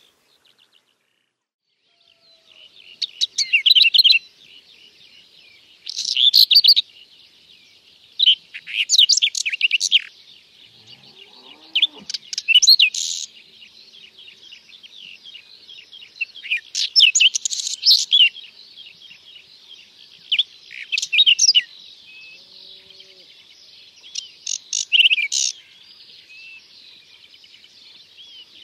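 Whinchat singing: short, scratchy, varied song phrases repeated every two to three seconds, over a faint steady high twittering background.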